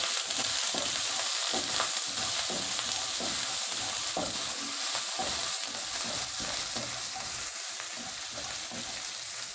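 Green masala paste with coriander and turmeric sizzling in hot oil in a non-stick wok, stirred and scraped with a spatula. The hiss is steady and slowly grows quieter.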